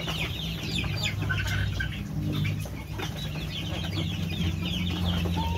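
Village chickens (ayam kampung) clucking and chirping over and over while they feed, over a steady low hum.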